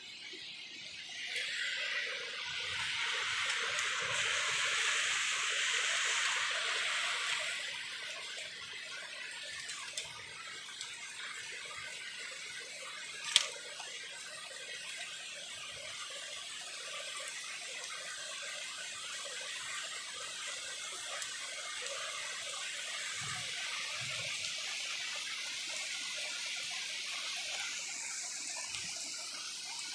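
Steady rain falling, swelling about two seconds in and easing back a little around eight seconds, then holding steady. A single sharp click about thirteen seconds in.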